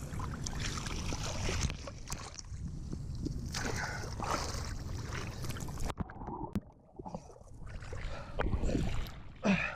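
Water sloshing and swirling around a person wading chest-deep through a pond, with low rumbling noise on the microphone; the sound nearly cuts out for a moment about seven seconds in.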